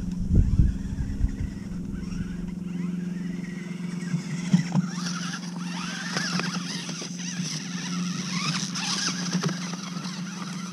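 Electric motor and gears of a P810 1:18-scale 4WD RC car whining as it drives close by over grass and pine needles. A high whine builds from about halfway through and is strongest near the end, over a steady low hum, with a few knocks early on and again about four seconds in.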